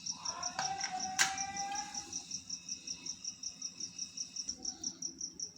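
An insect chirping in a rapid, even pulse of high notes, about ten a second. A faint whistling tone slides slightly downward through the first two seconds, and there is a single sharp click about a second in.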